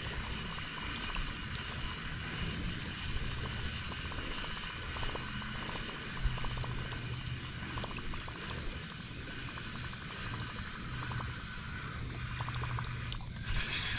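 Topwater chopper lure churning the water steadily as it is reeled back across a pond.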